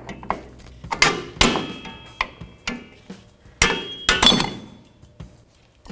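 A steel ratchet and long extension clank against the drum brake shoes and backing plate as they are worked in behind the installed shoes toward the wheel cylinder. There are four loud metallic strikes, each with a short ring, among lighter clicks.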